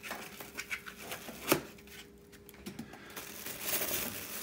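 Plastic foam packaging wrap being handled and pulled off a metal espresso machine: light rustles and small clicks, a single sharp tap about a second and a half in, then steady crinkling of the wrap near the end.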